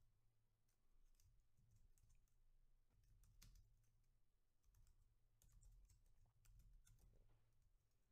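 Very faint computer keyboard typing: scattered key clicks over a low hum.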